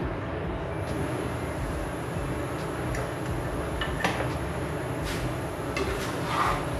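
Steady rumbling noise with a few light clicks, then a metal spatula scraping in a wok of noodles near the end.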